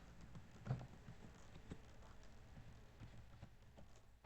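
Near silence with a few faint computer keyboard keystrokes, scattered clicks a second or so apart.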